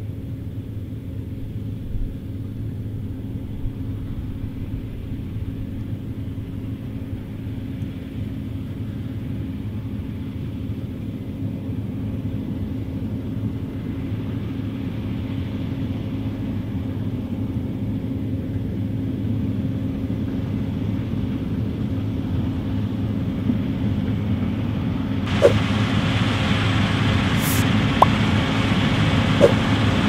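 Case IH Axial-Flow combine harvester running while it cuts rye: a steady low engine and threshing drone that slowly grows louder. About 25 seconds in, a louder hiss comes in abruptly, with a few sharp ticks.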